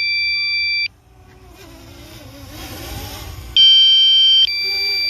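Electronic two-tone warning alarm from the Mavic Mini's remote-control setup: steady high beeps that step down in pitch halfway through each sounding. It cuts off just under a second in and starts again about three and a half seconds in. A faint, slowly rising background rumble fills the gap.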